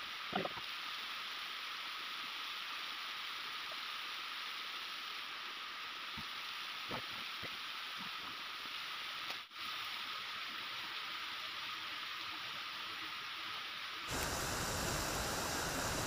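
Steady rushing of a small mountain waterfall and stream, with a few faint snaps. About two seconds before the end it turns louder and fuller.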